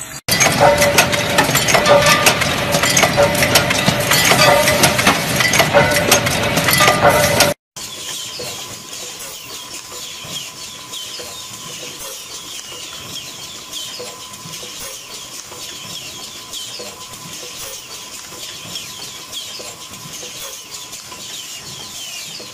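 Factory machinery in two parts. A loud, dense clatter of metal runs for about seven seconds, then cuts off suddenly. A quieter, steady running noise follows, with a constant tone and many short high chirps, as a twisted wire brush-making machine works.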